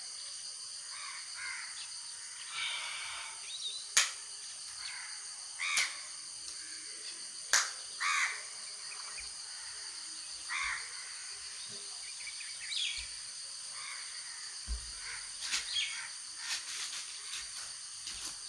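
Crows cawing now and then, short calls every few seconds, over a steady high-pitched background whine, with two sharp clicks in the first half.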